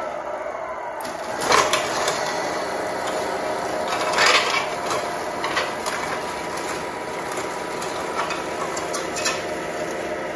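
A 1/14 Tamiya Grand Hauler RC semi truck's electric drive whining steadily as it drags a scale pull sled across a concrete floor, with louder clattering scrapes about one and a half and four seconds in.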